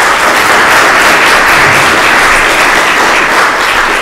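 Audience applauding: a dense, loud round of clapping that holds steady.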